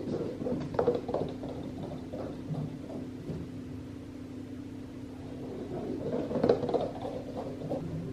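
House cats galloping across the floor as they chase each other: irregular heavy thudding footfalls in two flurries, one in the first second or so and one about six seconds in, over a steady low hum.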